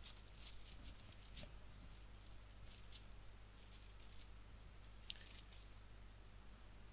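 Faint rustling of paper pages being leafed through in short, scattered bursts, over a low steady electrical hum.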